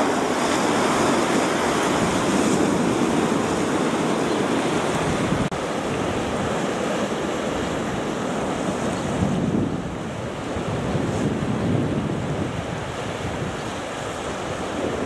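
Sea surf washing against a rocky shore, a steady rushing noise, with wind buffeting the microphone. It breaks off for a moment about five and a half seconds in, then carries on.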